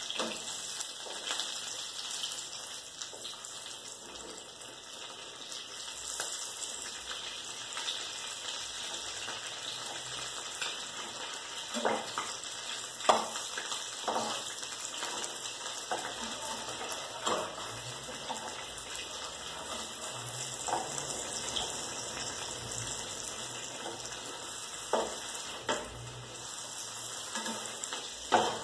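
An omelette frying in a pan with a steady, quiet sizzle. From about the middle on, a utensil clicks and taps against the frying pan a dozen or so times.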